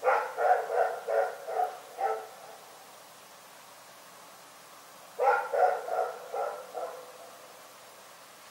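A dog barking in two runs: about six quick barks, a pause of about three seconds, then about five more.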